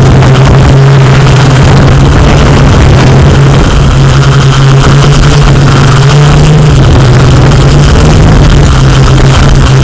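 Quadcopter drone's motors and propellers humming steadily in flight, the pitch lifting slightly midway.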